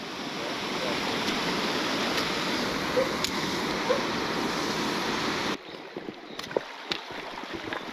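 A mountain stream pouring over a small cascade: a steady rush of water. About five and a half seconds in it drops abruptly to a much quieter flow with a few faint clicks.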